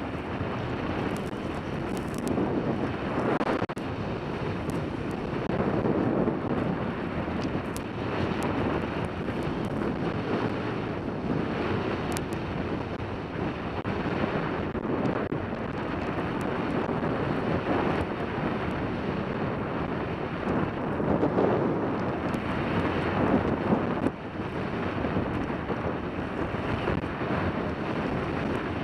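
Wind rushing over a helmet-mounted camera's microphone while skiing downhill, together with the hiss of skis sliding over packed snow. It rises and falls every few seconds.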